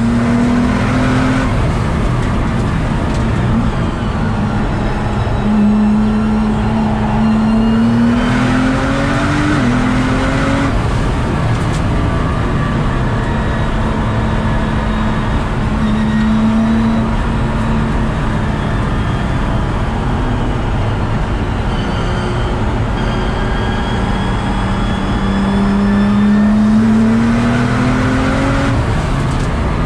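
Nissan GT-R R35's twin-turbo V6 heard from inside the cabin on a fast track lap. The engine pitch climbs under hard acceleration and drops sharply at quick upshifts, over constant loud road and tyre noise.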